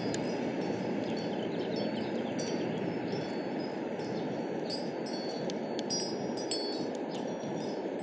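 Wind blowing steadily in a windstorm, with high metallic tinkling that rings out again and again.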